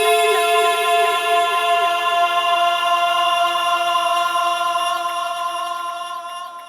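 Intro music: a held chord of many steady tones that slowly fades out over the last couple of seconds.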